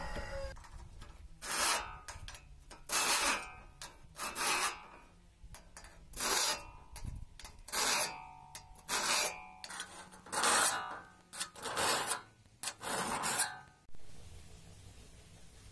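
A hand file rasping across the teeth of an old steel crosscut saw blade to sharpen them, in about nine slow strokes roughly one every second and a half. The blade rings faintly under each stroke, and the strokes stop near the end.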